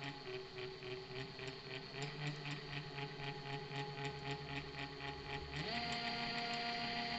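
Tongsheng TSDZ2 mid-drive e-bike motor running unloaded: a steady whine with a rapid, regular metallic ticking about five times a second. Near the end it speeds up, the whine rising in pitch and growing louder. The owner of the new motor is unsure whether this metallic noise is normal.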